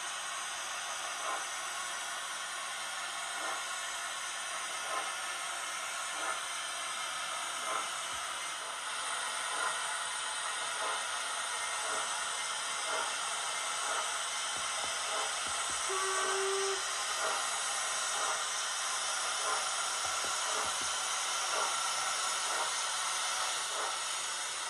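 Sound decoder of a model LMS Black 5 steam locomotive running, giving a steady steam hiss with soft exhaust chuffs spaced about a second apart. A brief tone sounds about two-thirds of the way through.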